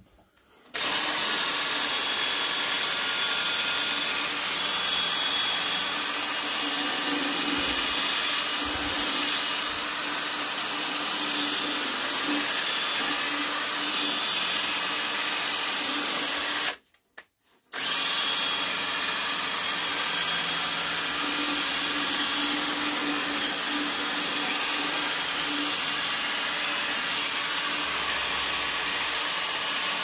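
Cordless drill running steadily, spinning a round brush that scrubs soapy foam around the heat-exchanger coil of a Vaillant gas wall boiler. The drill starts about a second in, stops briefly about 17 seconds in, then runs on.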